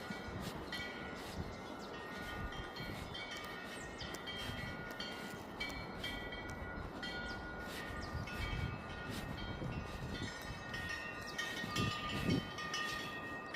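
Temple wind bells struck over and over as strong wind swings them, several metal bell tones ringing and overlapping. Wind rumbles on the microphone beneath them, gusting louder a few times.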